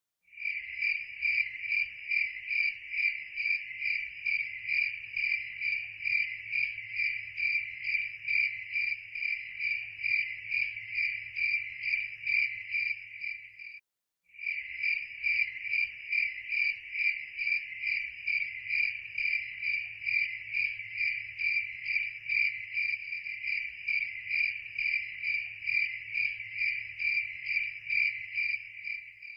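Cricket chirping in a steady rhythm of a few chirps a second. It is a looped recording that cuts out for a moment about halfway through, then starts again.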